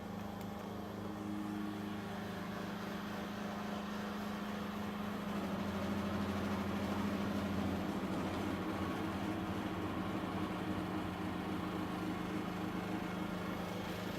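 CNC milling machine running a cut in aluminium without coolant, its spindle and cutter giving a steady hum over a noisy hiss. It grows a little louder about five seconds in, then eases back about three seconds later.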